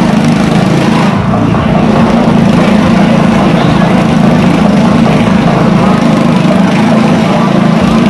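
Motorcycle engine running loud and steady at constant revs as the bike circles the vertical wall of a wooden wall-of-death drum.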